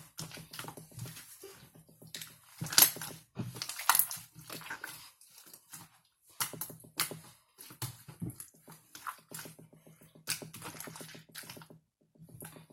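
Slime being squished and poked by hand, with irregular wet clicks and crackles; the slime is a year old and has let out liquid.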